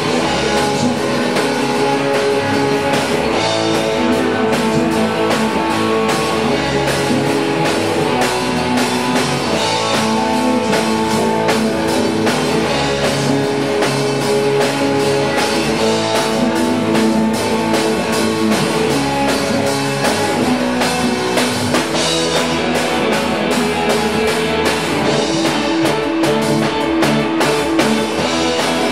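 Live band jam played loud: electric guitar over a steady drum-kit groove, with sustained guitar notes and regular drum hits.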